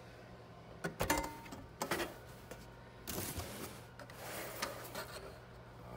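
Cardboard rustling with a few sharp knocks and clicks as a metal sluice box is handled and lifted out of its shipping box.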